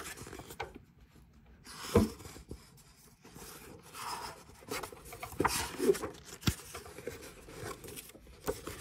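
Pages of a paper picture book being turned by hand: soft rustles of paper with a few short taps.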